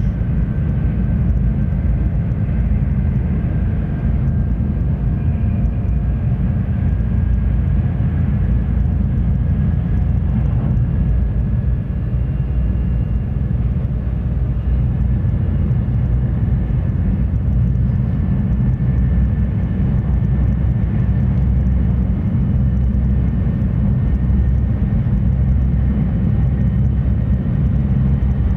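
Shinkansen train running at speed, heard inside the passenger car: a steady low rumble with a faint high whine above it.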